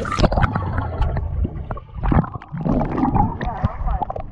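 Pool water sloshing and gurgling around a camera's microphone as it goes under the surface and comes back up, with irregular splashes and sharp water clicks.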